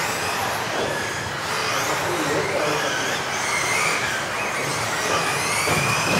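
Several electric RC off-road racing buggies running laps, their motors giving a whine that glides up and down in pitch as they accelerate and slow, over a steady background hubbub.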